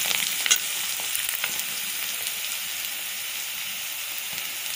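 Chopped onions, green chillies and curry leaves sizzling steadily in hot oil in a metal kadai. A steel spoon clicks against the pan about half a second and a second and a half in as they are stirred.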